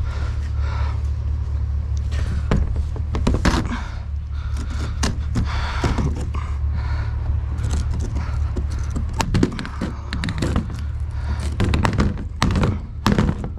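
Rummaging in a dumpster: repeated knocks, thuds and scrapes as cardboard and junk are pulled and shifted, more of them in the second half, over a steady low hum.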